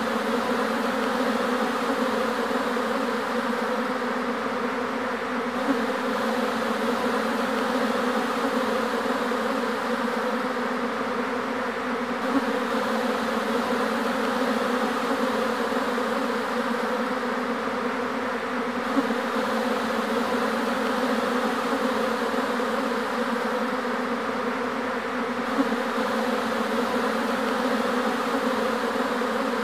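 A swarm of honeybees buzzing in a steady, dense hum as they fly around and cluster on the hive boxes, moving into a new hive.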